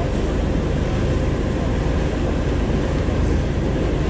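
Steady low rumble and rush of a motorboat running underway: engine drone mixed with water and wind noise.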